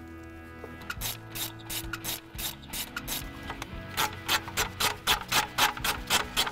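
Hand ratchet wrench being worked back and forth on a fastener, each return stroke giving a short rasping burst of pawl clicks. The strokes start about a second in and quicken to about three a second, over background music.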